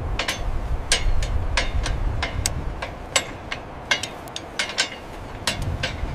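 Hand tools tapping and clinking on wrought-iron fittings: sharp metallic knocks at an irregular pace, two or three a second, over a low wind rumble.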